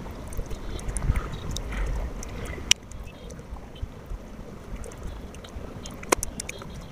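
Hand-eating sounds: fingers picking chicken off the bone on a steel plate, with chewing and small wet mouth clicks. Two sharp clicks stand out, one a little under three seconds in and one about six seconds in.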